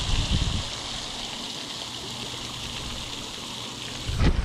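Pond aerator fountain spraying, a steady hiss of water falling back onto the pond surface. Low rumbling bumps on the microphone in the first half-second and again about four seconds in.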